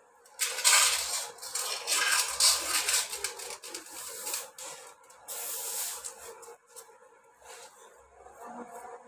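Short straw broom swishing across a concrete floor in several bouts, sweeping loose green peas that rattle into a bowl. The longest, loudest sweeping comes in the first few seconds, with another bout about halfway and lighter strokes near the end.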